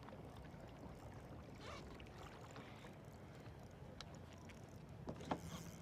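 Quiet sounds of a kayak on the water: a low, steady background with a few light clicks and knocks, the loudest about five seconds in.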